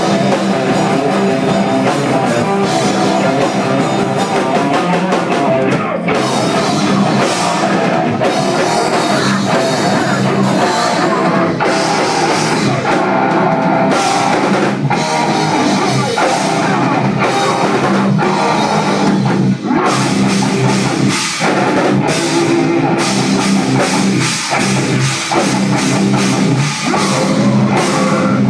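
Loud live heavy rock band playing: electric guitar and a drum kit at full volume.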